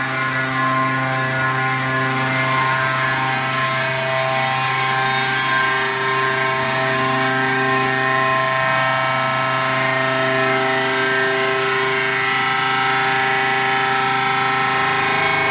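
Large gantry CNC machine running: a steady mechanical hum with several whining tones layered over it, some fading in and out every few seconds.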